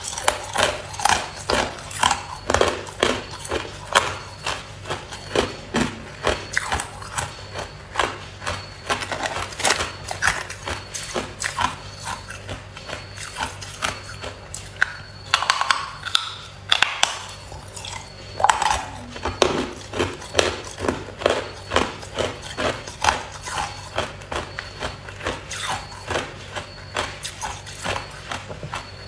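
Chunks of hard white ice being bitten and chewed, a dense run of sharp crunching cracks several times a second with short pauses between bites.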